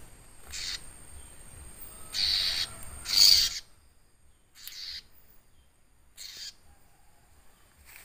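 Prinia (prenjak) held in the hand giving harsh, raspy distress calls: five short calls, the loudest about three seconds in.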